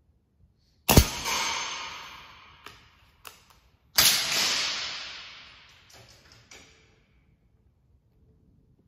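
A moderated .177 Kral NP02 air rifle fires about a second in: a sharp crack that rings away over a couple of seconds. A few light clicks follow. A second, similar sharp report comes about four seconds in and dies away over about three seconds, with a couple more clicks after it.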